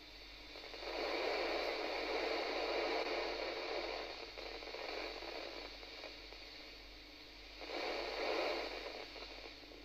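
Yaesu amateur radio transceiver on 143.625 MHz FM giving out hiss and static between transmissions, the ISS downlink signal weak and fading. The hiss swells about a second in, eases after about five seconds, and swells again briefly near the end.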